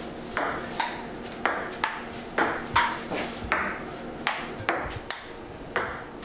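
Table tennis rally: the celluloid-type plastic ball clicking alternately off the rubber paddles and the table, about two crisp hits a second at an even pace.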